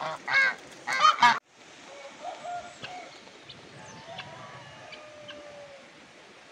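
Domestic geese honking, several loud calls in quick succession that cut off suddenly about a second and a half in. Quieter, scattered calls from chickens and other farmyard fowl follow.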